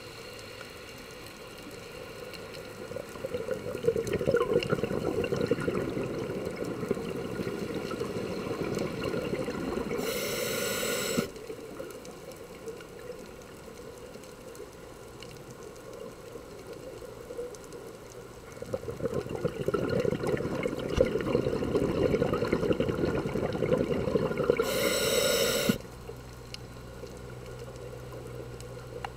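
Scuba diver breathing through a regulator underwater: two long stretches of exhaled bubbles, each ending in a short high hiss that cuts off suddenly, with quieter water noise between them.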